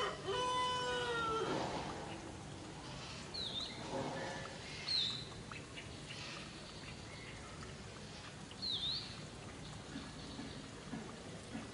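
A long, pitched animal call with a slight fall in pitch during the first second and a half, then three short, high chirps from a bird spread through the rest, over a faint steady outdoor background.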